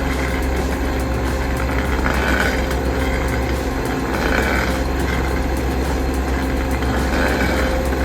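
Heavy machine engine running steadily, with a swell in its sound every two to three seconds.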